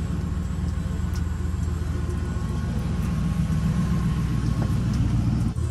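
Mercedes car engine running steadily through a straight-piped exhaust, a deep, even note, broken by a brief dip about five and a half seconds in.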